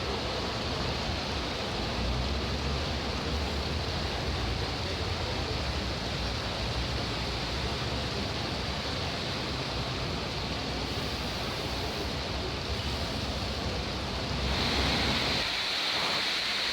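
Steady rush of heavy rain and running floodwater, an even hiss with a low rumble underneath. Near the end the sound turns brighter and hissier as the low rumble drops away.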